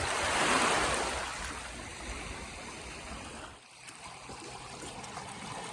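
Seawater washing over the rocks and shells at the shoreline: a rush of surf that swells about half a second in and fades, then a steady wash and trickle.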